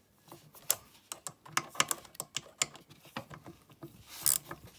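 Hand ratchet clicking in short, irregular runs as it turns a screw on a pocket bike's carburetor mounting, with a couple of louder clacks near the end.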